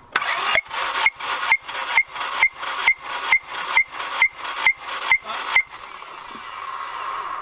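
Starter motor cranking a Honda B16A2 1.6-litre inline-four over without it firing, with fuel injectors and ignition disconnected and the throttle held wide open for a compression test. The cranking gives an even pulse about twice a second, about thirteen in all. It stops about five and a half seconds in, leaving a steady hiss that cuts off at the end.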